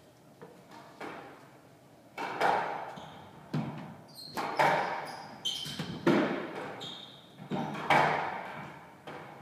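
Squash rally: the ball cracking off rackets and the walls about once a second, each hit echoing in the court. Short high squeaks of court shoes on the wooden floor come between the hits.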